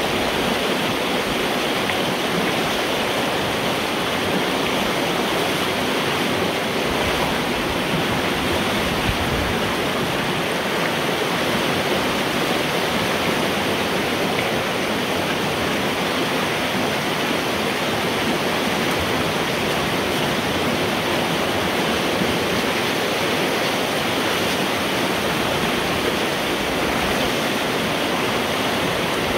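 Water rushing and churning steadily through a road culvert pipe, heard from inside the pipe, as beaver-dam sticks are pulled from the blockage and the flooded pond drains through.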